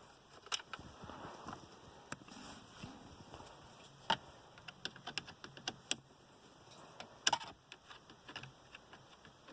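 Faint scattered clicks and taps from unscrewing small self-tapping screws in the plastic trim under a car's dashboard, with a sharper cluster of clicks about seven seconds in.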